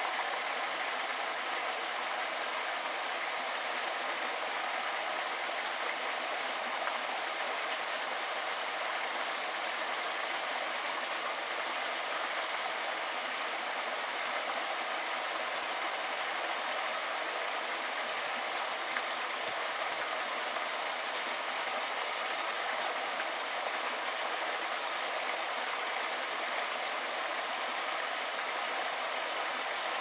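Small forest stream running over rocks: a steady, even sound of flowing water.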